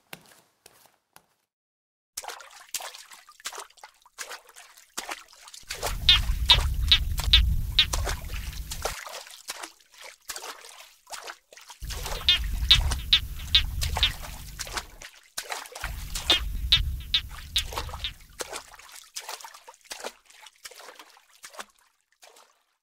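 Creature sound effect for an animated dinosaur: a rapid, raspy clicking chatter, with three louder spells of it over a deep low rumbling growl.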